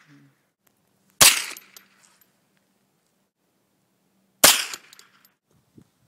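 Two gunshots about three seconds apart, each a sharp crack with a short echoing tail.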